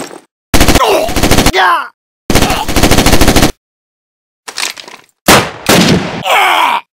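Dubbed automatic-gunfire sound effects, as in a video-game first-person shooter: two rapid bursts of about a second each, separated by a falling-pitch sound. After a short pause come further loud sudden blasts near the end.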